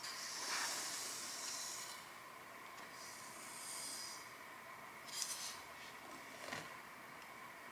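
Dry granular ingredients (sugar, salt, baking powder) poured onto a heap of flour: a few short, soft hissing trickles of falling grains.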